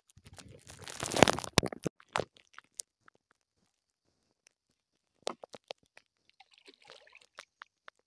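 Close rustling and crackling in a wooden dugout canoe, loudest about a second in, with a little water sloshing, followed by a few sharp knocks and light clicks.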